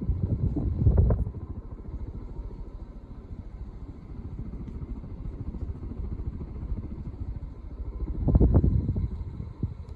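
Casablanca California Zephyr ceiling fan, fitted with an Astrosyn motor, running at its top speed; its downdraft buffets the microphone as low wind rumble, which surges about a second in and again near the end over a faint steady motor hum.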